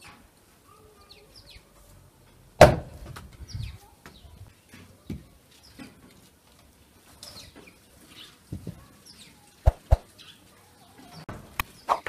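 Firewood being chopped on a wooden chopping block: one loud sharp crack about two and a half seconds in, then a few lighter knocks near the end. Birds chirp faintly between the strikes.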